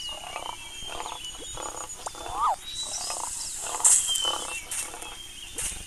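Overlapping animal-call sound effects: a short call that rises and falls in pitch, heard twice, over rows of pulsed calls, faint high chirps and a few sharp noisy bursts.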